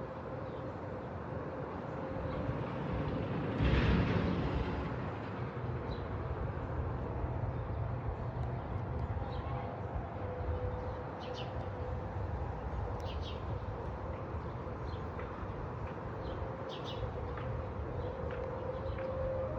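A distant outdoor warning siren holding one faint steady tone over wind and outdoor noise, with scattered bird chirps. A louder swell of noise comes about four seconds in, and near the end a nearer siren starts winding up, rising in pitch.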